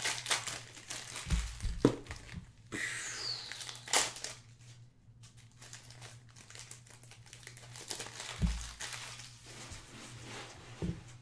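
Trading cards handled and sorted onto stacks on a table: a run of paper-and-plastic crinkling and rustling with light clicks as cards are slid and dropped, and a couple of soft thumps.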